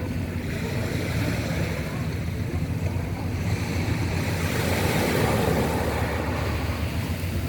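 Sea waves washing onto a pebble beach, the surf swelling and hissing about four to six seconds in, with wind rumbling on the microphone.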